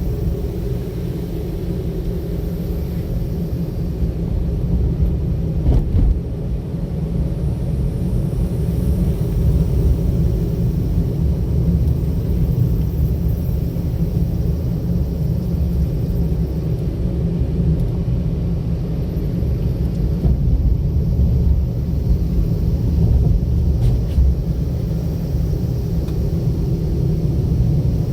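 Steady low rumble of a car being driven, road and engine noise picked up by a camera mounted inside the car.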